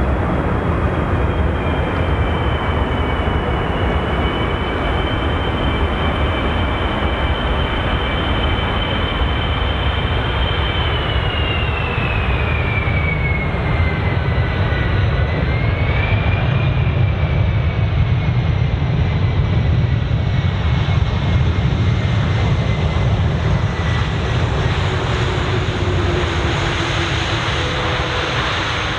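Airbus A330-200F freighter's jet engines on landing: a steady loud rumble with a high whine that drops in pitch about halfway through as the aircraft passes. The rumble swells a little during the rollout on the runway.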